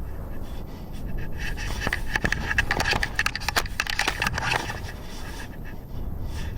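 Irregular clicks and scraping over a steady low rumble, the clicks thickest in the middle seconds.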